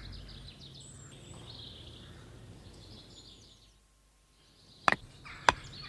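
Faint birdsong chirps over quiet country ambience, which fades almost to nothing, then two sharp knocks near the end as a tent peg is hammered in.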